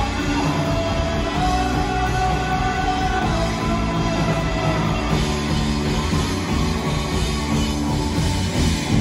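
Indie rock band playing live on electric guitars, bass and drums in an instrumental stretch without vocals, loud and steady.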